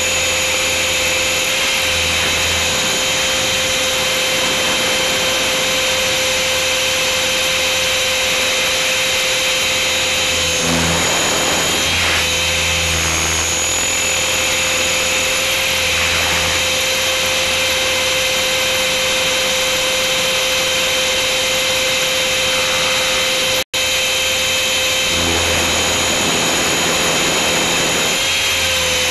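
Onboard sound of a 500-size RC helicopter in flight: a steady high whine from its motor and gears over rotor noise. A rush of wind noise swells about a third of the way in and again near the end, while the helicopter rolls inverted, and the sound cuts out for an instant about three quarters through.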